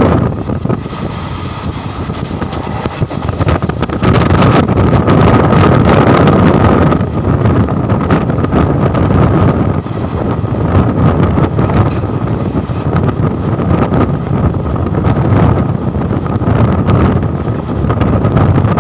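Indian Railways passenger train running along the track: a continuous rumble and clatter of wheels on rails, with wind buffeting the microphone and a thin steady whine throughout. It grows louder about four seconds in.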